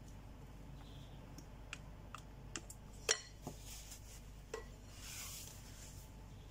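Faint clicks and scrapes of a spatula against a glass mixing bowl of cake batter, with one sharper clink that rings briefly about three seconds in, then a short soft rustle of a paper towel wiping a hand.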